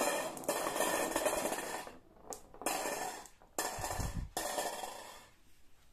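Marbles rolling and clattering down a carved wooden wavy-groove slope track and into a cardboard bowl: a dense rattle that stops and starts again twice, with a dull thump partway through, before dying away near the end.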